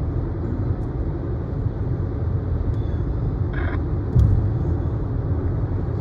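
Steady low rumble of road and tyre noise heard inside a moving car's cabin, with a brief thump about four seconds in.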